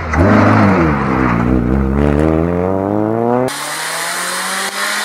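Rally car engines at stage pace. A hatchback's engine drops in revs into a tarmac bend, then the revs climb steadily as it accelerates out. About three and a half seconds in, the sound switches abruptly to another car's engine held at fairly steady revs.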